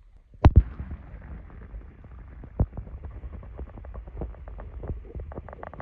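A camera dunked into lake water: a sharp double splash about half a second in, then muffled underwater sound, a low rumble with many small clicks and ticks that come thicker near the end.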